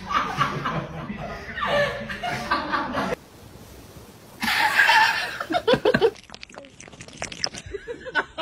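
A person chuckling and laughing in short bouts, with a brief lull in the middle. Near the end comes a run of short clicks and taps.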